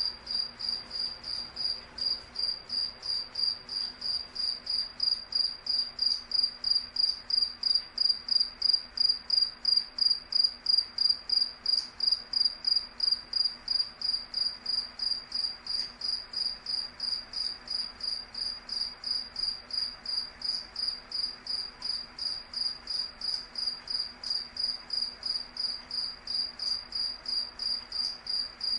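A cricket chirping in a steady, even rhythm of about three high-pitched chirps a second, each at the same pitch.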